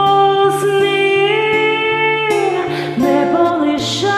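A woman singing long held notes that bend between pitches, over a karaoke backing track with a steady low bass note.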